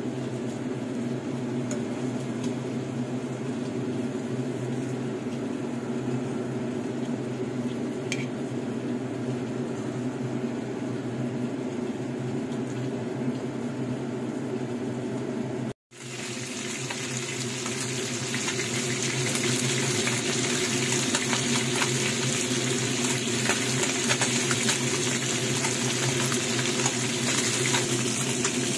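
A steady low hum from a kitchen appliance. It cuts off abruptly about halfway through and gives way to hot oil sizzling and crackling as whole threadfin bream (bisugo) fry in a pan, growing louder a couple of seconds later.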